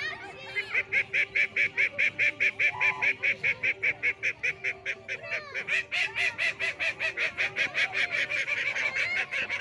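Farm poultry, likely geese, calling in a fast, even run of loud honking calls that starts about half a second in and keeps going, with quieter lower calls underneath.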